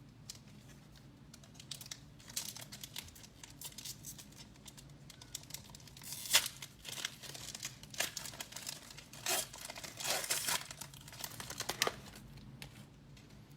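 Upper Deck hockey card pack wrapper being torn open and crinkled by hand: irregular crackling and rustling, with a sharp tear about six seconds in and more crackling a few seconds later.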